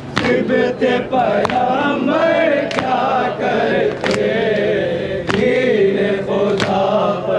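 A group of men chanting a noha (Shia lament) in chorus, with sharp, in-time slaps of matam (hand chest-beating) landing about every 1.3 seconds.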